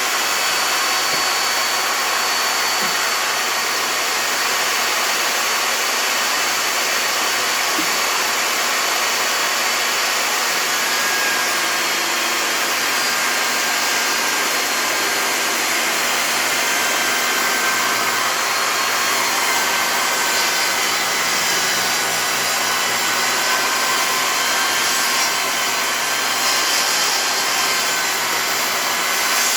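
Table saw running steadily, a continuous even whir, while fence pickets are ripped into 1-inch strips.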